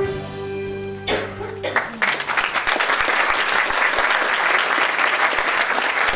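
Flute ensemble holding a final chord, which breaks off a little under two seconds in. Audience applause starts right after and carries on as the loudest sound.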